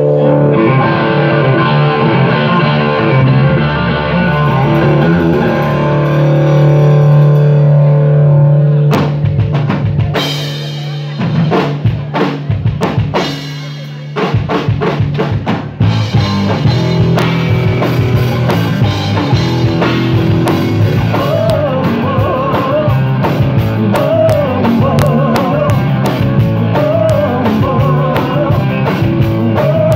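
Live rock band playing through a PA. Held guitar and bass chords ring for the first several seconds, then come scattered drum hits and fills. From about 16 seconds a steady drum beat with bass and electric guitar sets in, and a woman's voice starts singing a few seconds later.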